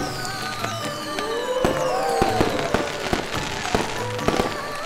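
Fireworks going off, with scattered sharp firecracker pops and several falling whistles, over festive music.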